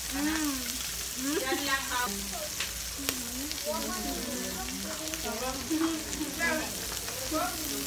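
Pork belly sizzling steadily on a tabletop grill pan, under people's chatter, with one sharp click about three seconds in.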